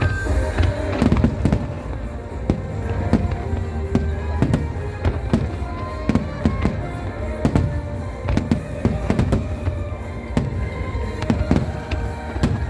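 Aerial fireworks shells bursting in quick succession, several sharp bangs a second, with music playing alongside.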